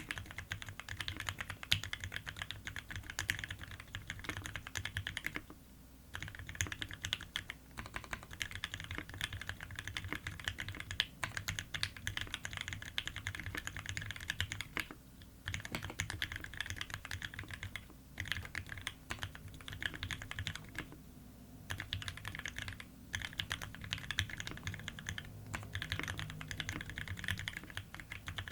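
Fast typing on a Keycult No.2 Rev.1 custom mechanical keyboard with lubed Gateron Ink Black linear switches, a brass plate and GMK Metropolis keycaps: a quick, steady stream of keystroke clacks, with short pauses about 6, 15 and 21 seconds in.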